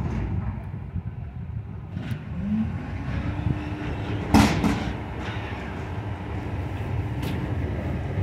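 Garbage truck's engine running with a steady low rumble; a steady hum joins about three seconds in, and a single loud sharp bang comes about halfway through.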